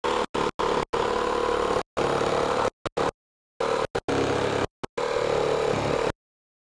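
Milwaukee M12 12-volt cordless jigsaw cutting a curve in Baltic birch plywood: the motor and reciprocating blade run at a steady pitch, the sound breaking off sharply several times. The blade is binding in the tight curve, which the user puts down to the saw being a little underpowered.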